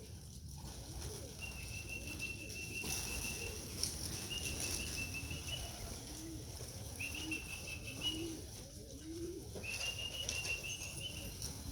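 Pigeons cooing in short, low, rising calls, with a few wing flaps. A high, steady trilling tone sounds four times, each about a second long.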